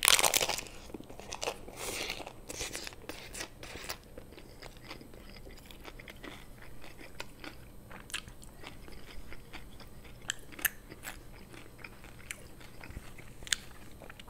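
A bite into a crisp hard-shell corn taco: one loud crunch, then several more crunches over the next few seconds as it is chewed. After that comes softer chewing with scattered small clicks.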